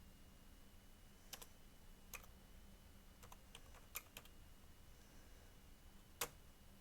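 Faint computer keyboard keystrokes and clicks, about ten of them scattered irregularly, as values are typed into a program's settings.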